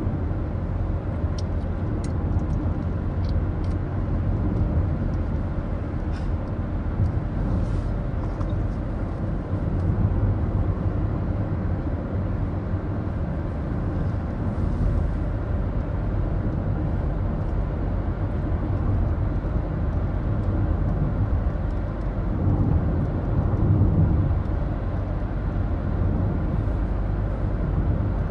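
Ford Focus diesel car driving at a steady pace, heard from inside the cabin: a steady low engine and road rumble. A few faint ticks come in the first few seconds.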